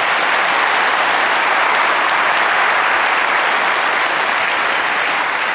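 Audience applauding, a steady sustained clapping that eases slightly near the end.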